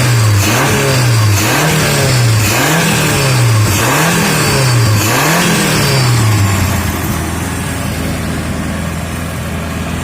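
Modified 1000cc engine being revved in repeated blips: its pitch climbs and drops about five times in quick succession, then it settles to a steady idle about six or seven seconds in.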